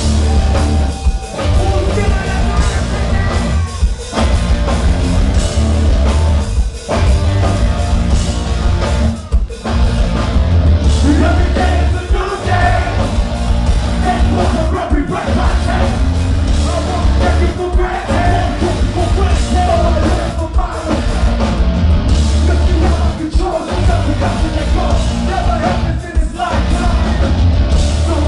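Live nu-metal band playing loud, with a shouted and sung lead vocal over distorted guitars, bass and drums. The sound is bass-heavy and dips for a moment several times.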